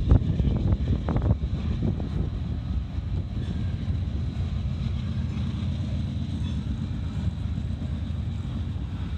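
Freight train of covered hopper cars rolling past: a steady low rumble of steel wheels on the rails, with a few knocks in the first couple of seconds. Wind buffets the microphone.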